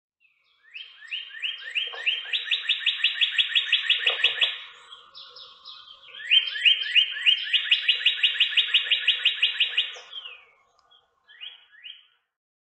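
Northern cardinal singing: two long phrases of quick repeated slurred whistles, speeding up to about six a second, with a few more notes near the end.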